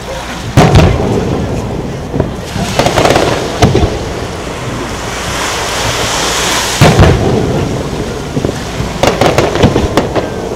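Aerial firework shells bursting. Deep booms come about a second in and again near seven seconds, with clusters of sharper bangs around three seconds and near the end, each trailing off in a rumble.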